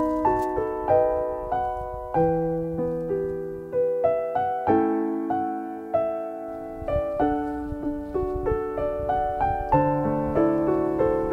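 Background piano music: a gentle melody of single notes over chords, played at an even pace.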